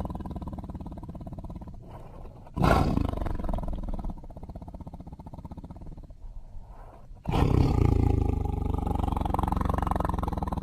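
Tiger roaring, deep and rough: a roar trailing off, then a new roar starting suddenly about two and a half seconds in and fading away, and another starting suddenly about seven seconds in.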